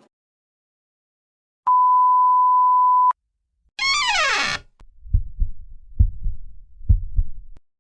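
A string of editing sound effects: a steady 1 kHz censor bleep lasting about a second and a half, then a quick tone sliding down in pitch, then a heartbeat effect of three low double thumps (lub-dub) about a second apart.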